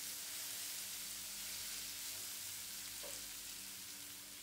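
Shallots and garlic sizzling steadily in butter in a nonstick frying pan, stirred with a wooden spatula.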